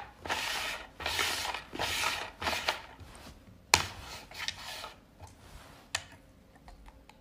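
Plastic lids being slid and scraped across a tabletop: a series of short rubbing scrapes, with a sharp tap about halfway through.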